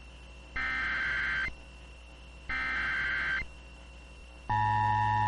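Emergency Alert System SAME header: two bursts of digital data tones, each a harsh warble just under a second long, spaced a second apart. Near the end the steady two-tone EAS attention signal starts.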